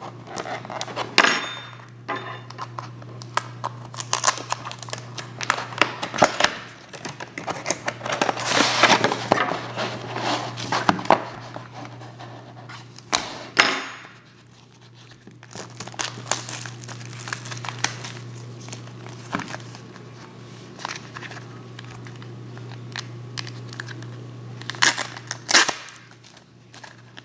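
Plastic and foil wrapping on a trading-card box and packs crinkling and tearing as they are opened, in irregular rustles and sharp crackles, with a steady low hum underneath.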